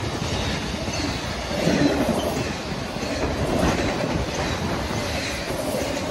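Intermodal freight train's flatcars rolling steadily past, a continuous rumble of steel wheels on rail with clickety-clack, swelling louder about two and four seconds in as wheel sets pass.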